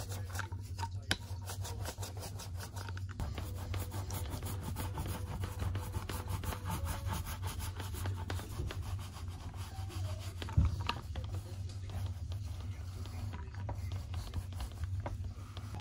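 Small foam paint roller rubbing and rolling acrylic paint over a palette and a stretched canvas, a steady rasping sound, with one sharp knock about ten and a half seconds in.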